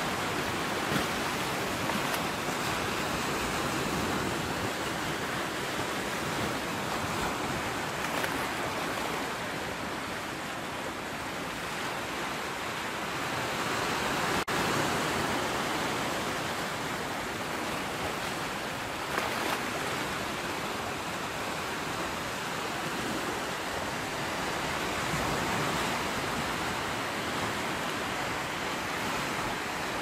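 Sea surf washing steadily, swelling and easing slowly in long surges.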